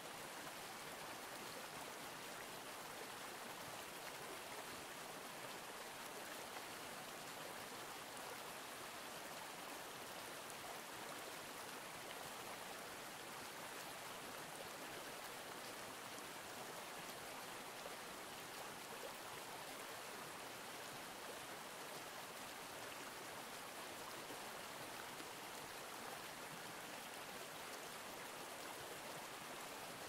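Steady rush of a stream's running water, even throughout, with no bird calls.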